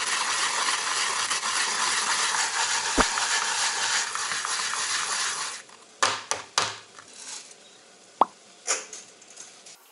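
Daikon radish being grated by hand on a grater bowl: a steady rough rasping that stops about five and a half seconds in. A few scattered clicks and knocks follow.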